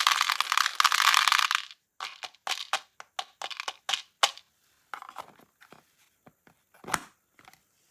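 A steady pouring rush with a fine crackle that cuts off about two seconds in, followed by a string of scattered short clicks and light taps, with one louder knock about seven seconds in.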